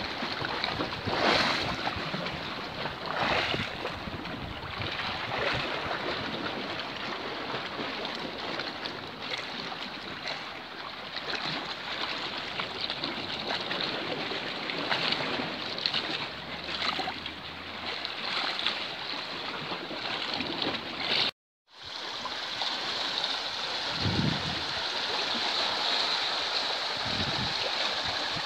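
Seawater lapping and splashing in small waves, swelling briefly every few seconds. After a short cut about three quarters of the way through, a steadier rush of shallow water washing over pebbles.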